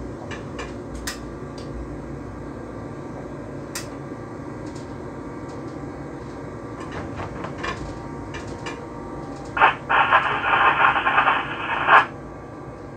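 Steady running noise inside the cab of an electric train, with scattered clicks. Near the end a loud electronic buzz sounds in the cab for about two seconds and cuts off suddenly.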